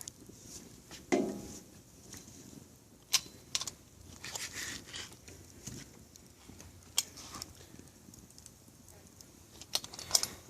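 Fire in a fire pit crackling, with scattered sharp pops and a short, louder low sound about a second in.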